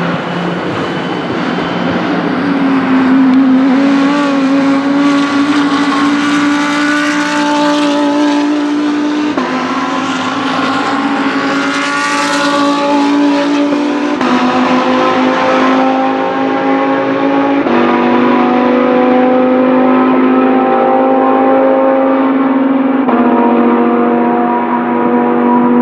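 GT race car engines running at high revs along the track, the pitch jumping abruptly about four times as gears change. A car passes close about twelve seconds in.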